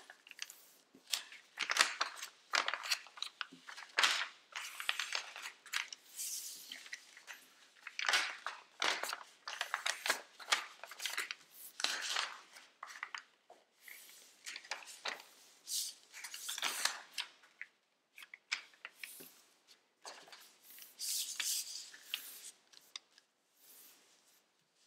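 A sheet of origami paper rustling and crackling in many short, irregular bursts as hands lift it, unfold its creases and press it flat.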